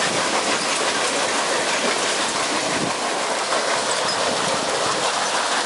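Water rushing and splashing steadily through the paddle wheel of a self-propelled irrigation-canal screen, the flow that drives the self-cleaning machine.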